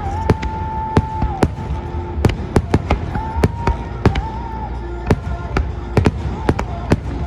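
Fireworks bursting in quick, irregular succession, about three sharp reports a second, over a low rumble, with music playing along with the display.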